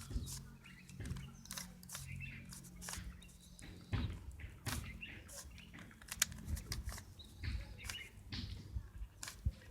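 Plastic 3x3 Rubik's Cube being turned quickly through an algorithm: an irregular run of sharp clicks and clacks as the layers snap round.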